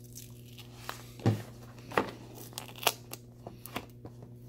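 Paperboard phone box being pried open by hand: card and paper tearing and crinkling, with about four sharp cracks as the flap gives.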